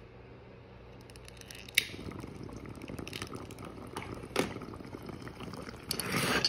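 Water bubbling in a bong as a hit is drawn through the lit bowl, with a sharp click near the start and another about four and a half seconds in. Near the end the rush grows louder as the bowl is pulled to clear the smoke.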